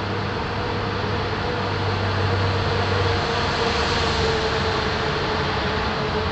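Honda Civic EJ9's four-cylinder engine, its carburettor gasket milled open, running in a tunnel with a steady drone that swells slightly in the middle and then eases back.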